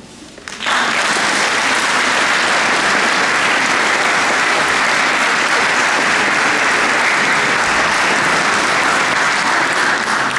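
Audience applauding, breaking out suddenly about half a second in and holding steady.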